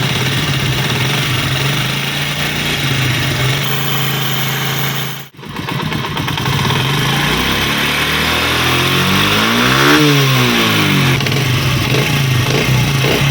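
A 70cc single-cylinder four-stroke motorcycle engine idling steadily. After a brief break about five seconds in, it is revved up and let fall back to idle around ten seconds in.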